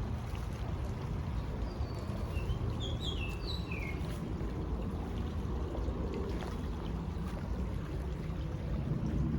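A bird gives a brief run of quick, high chirps about two seconds in, over a steady low rumble of outdoor ambience.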